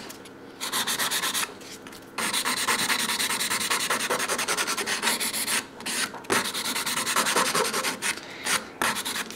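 A 100/180-grit hand nail file rubbed quickly back and forth over a hardened building-gel nail, shaping its side walls: fast, even scraping strokes, broken by two short pauses about one and a half seconds and six seconds in.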